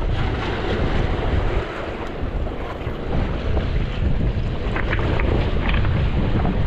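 Strong wind buffeting the microphone, with the sea surging against the jetty underneath.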